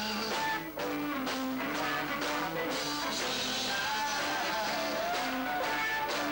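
Live rock band playing: a man sings over electric guitars.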